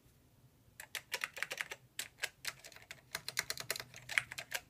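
Keys of a Macintosh Portable's keyboard being typed, in quick, irregular clicks that start about a second in.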